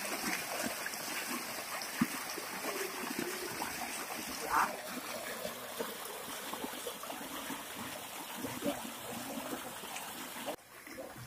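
Stream water pouring and splashing over a woven bamboo mat and rocks in a steady rush. A short higher note sounds about four and a half seconds in, and the water gets suddenly quieter about ten and a half seconds in.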